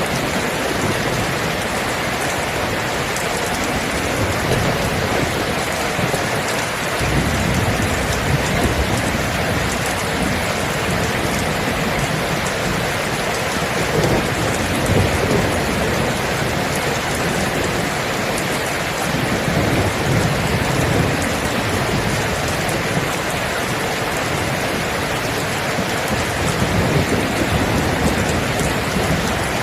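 Steady heavy rain with distant thunder, low rumbles that swell and fade several times under the rain.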